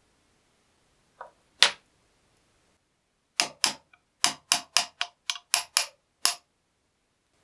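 Two knocks a little over a second in, then a quick run of about ten sharp metallic hammer blows, roughly three a second, as an old chisel's wooden handle is knocked loose from its tang in a vise.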